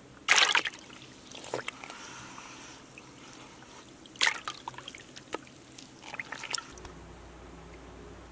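A hand swishing and stirring water in a plastic bucket of compost tea, with repeated splashes and drips. Near the end a steady low hum comes in.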